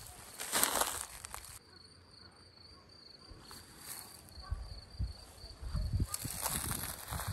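Footsteps and rustling of plants as someone walks through garden vegetation, in three swells of rustling with soft footfalls in the second half. An insect trills steadily in the background.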